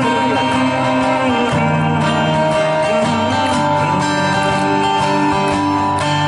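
Live acoustic guitar music: chords played at a steady level with sustained melody notes over them.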